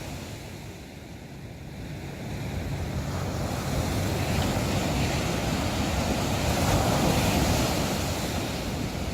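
Ocean surf rushing, swelling gradually to its loudest about seven seconds in and then easing.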